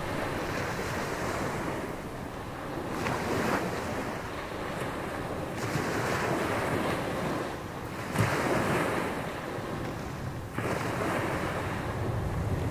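Gulf of Mexico surf breaking on a sandy beach, each wave surging in sharply and washing out, about every two and a half seconds, with wind buffeting the microphone.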